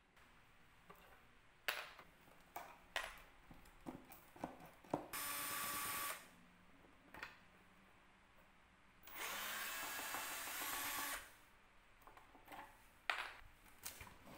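Bosch cordless drill-driver running on a screw in the table's wooden frame, in two steady bursts: about a second long, then about two seconds. Light knocks and clicks of handling the wood and tool come before, between and after the bursts.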